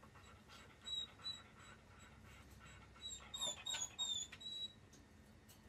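Domestic ferret giving short, high-pitched squeaks: a couple about a second in, then a quicker run of wavering squeaks near the middle.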